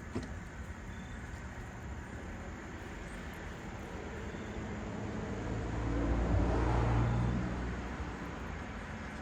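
A motor vehicle passing: a low engine hum swells over about two seconds, peaks around six to seven seconds in and fades away, over steady outdoor background noise.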